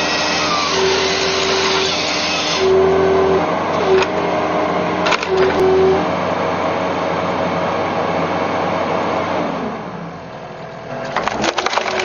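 Hydraulic crane-mounted firewood processor working a birch log: a steady machine drone with a whine that starts and stops several times, and a few sharp cracks of splitting wood. The noise drops briefly near the end.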